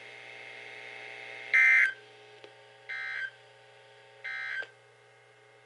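Emergency Alert System end-of-message data tones: three short buzzy digital bursts about 1.3 seconds apart, the first the loudest. They signal the end of the warning message. A faint steady hum runs underneath.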